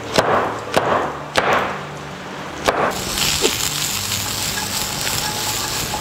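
Four chops of a large kitchen knife slicing button mushrooms on a wooden cutting board. About three seconds in, a steady sizzle takes over: sliced garlic and onion frying in hot oil in a pan.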